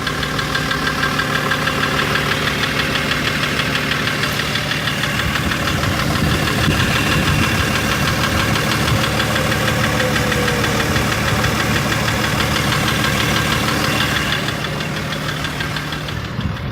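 BMW M57 3.0-litre straight-six diesel running with a steady, rhythmic knock. The knock appeared right after the injectors were pulled and refitted, with one replaced, one adjusted and the injector wells reamed out; the cause is unknown to the owner.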